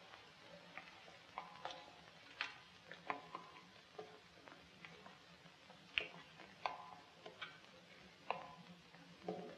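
Faint scattered clicks and knocks, irregular, about one or two a second, ringing briefly in a stone crypt, over a low steady hum.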